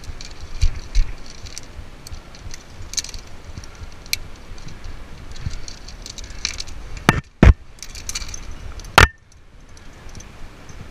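Metal climbing gear clinking and jangling: carabiners and protection on the climber's harness knocking together as a carabiner is handled, with many small sharp clicks. A few loud knocks come about seven and nine seconds in.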